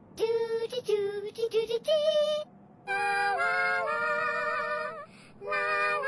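A soundtrack song with a high-pitched singing voice: several short notes, then a longer held phrase with wavering pitch starting about three seconds in.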